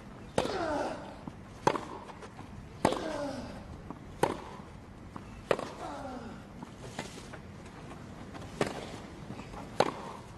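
Tennis rally on a grass court: the ball is struck by rackets about eight times, roughly every second and a quarter, and a short grunt falling in pitch follows several of the strokes.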